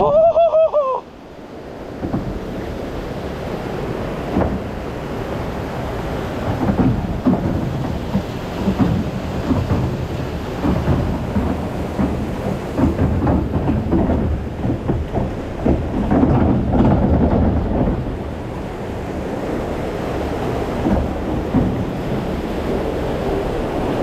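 Log flume boat floating along its water channel after the splashdown: water rushing and splashing around the boat, with a heavy low rumble and many small crackling splashes. A brief high cry from the rider comes right at the start.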